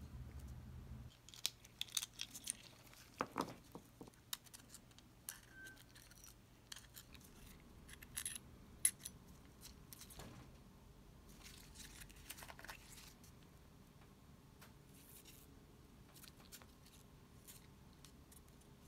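Small metal parts of a Shimano Calcutta 100XT baitcasting reel handled with tweezers and gloved fingers: scattered light clicks and taps, busiest in the first dozen seconds, then only faint room tone.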